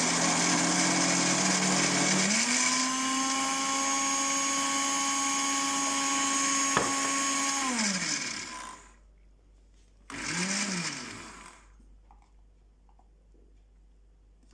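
Countertop blender motor grinding soaked brown rice and beans into a thick dosa batter with very little water. The motor's pitch rises about two seconds in, then it runs steadily and spins down to a stop near eight seconds. A second later comes one short pulse that speeds up and winds down.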